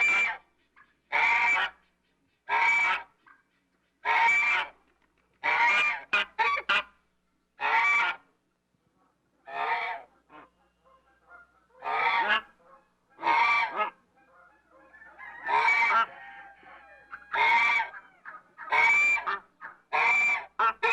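African geese honking over and over: loud, harsh calls about every second and a half, a few in quick pairs, with a softer run of quieter calls around the middle.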